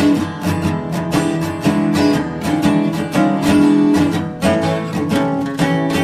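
Background music: strummed and plucked acoustic guitar with a steady beat.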